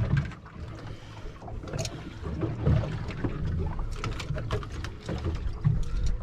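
Water slapping and sloshing against a small boat's hull, with scattered light knocks and clicks from handling aboard.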